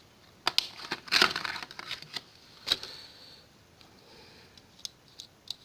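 Handling noise: a run of clicks and rustles about a second in, then single clicks and knocks, fainter ticks near the end.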